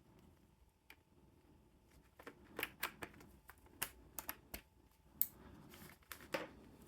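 Keys clicking on an Arzopa K81 mechanical keyboard: about a dozen irregular key presses, starting about two seconds in.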